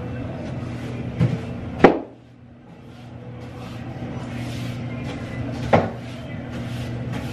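A mop working a bathroom floor: sharp knocks and clacks of the mop against the floor and fixtures, the loudest about two seconds in and another near six seconds, over a steady low hum.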